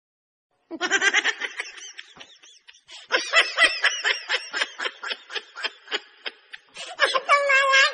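High-pitched laughter in quick repeated bursts starting about a second in, ending in a held, high squeal near the end.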